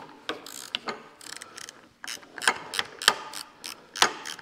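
Hand ratchet wrench clicking as a bolt is tightened, in short irregular runs that get louder about halfway through.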